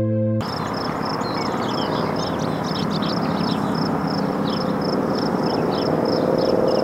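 Outdoor field ambience: a high-pitched insect chirps steadily, about four pulses a second, over a broad rushing hiss, with short bird calls falling in pitch. A held musical chord cuts off about half a second in.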